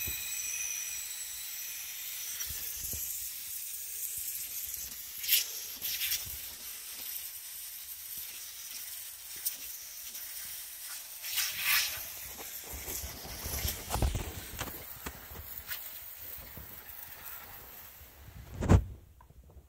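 Pressure washer jet hissing steadily as it sprays onto wooden decking, with a few short knocks. A louder thump comes near the end and the hiss stops.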